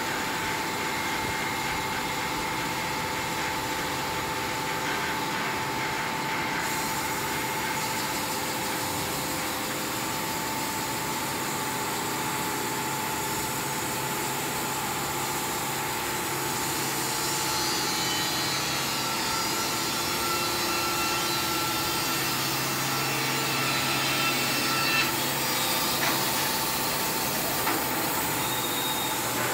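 Wood-Mizer WM3500 industrial band sawmill running, its band blade sawing through a log with a steady machine noise. The sound grows brighter and louder for several seconds past the middle, with a few knocks near the end.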